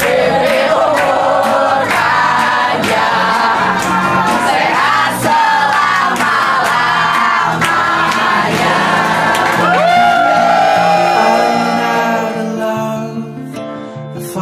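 A group of people singing together and clapping steadily in time, with music underneath. About twelve seconds in, the singing and clapping fade and a recorded song carries on.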